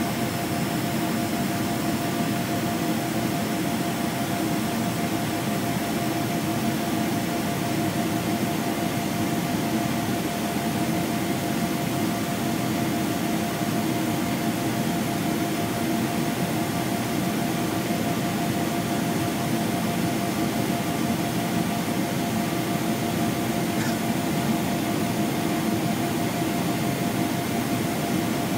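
Steady cabin drone of a Boeing 777-300ER in flight, heard from inside the passenger cabin: the GE90 jet engines and the airflow along the fuselage, a constant low rushing noise with a faint steady hum above it.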